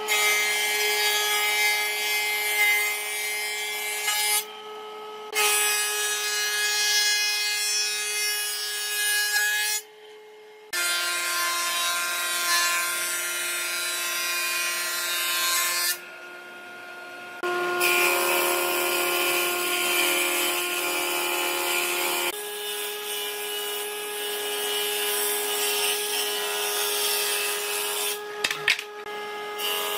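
Combination jointer-thickness planer running and planing wooden boards: a steady cutterhead whine over the hiss of shavings being cut. There are brief drops in level between passes, and the machine's pitch shifts a little from one pass to the next.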